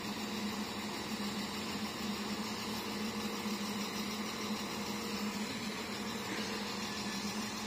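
Northern Ireland Railways Class 4000 diesel multiple unit idling while standing, a steady engine hum.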